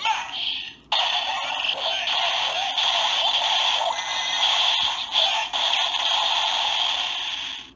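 DX Gashat Gear Dual toy's small speaker playing its KO special-move sound effect: a dense barrage, like being pummelled by rapid blows, that starts about a second in and cuts off near the end.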